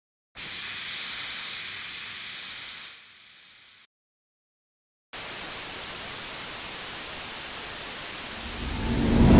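Broadcast-style static hiss in two stretches: a burst of a few seconds that cuts off into silence, then steady static that swells near the end into a loud, deeper rush.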